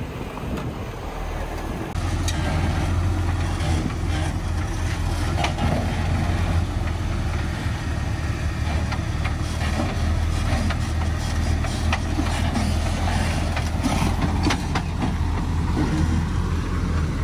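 Jeep Wrangler engine running at a low, steady crawl as the vehicle creeps down a rock ledge, a constant low drone with a few faint clicks.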